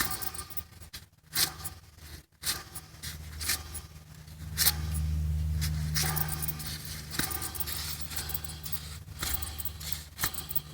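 A removed 1997 Toyota alternator with its free-spin (one-way clutch) pulley being turned by hand gives a metallic scraping and clicking, in uneven strokes, over a low steady hum that swells about halfway through. The owner suspects the free-spin pulley, or the alternator itself, is bad.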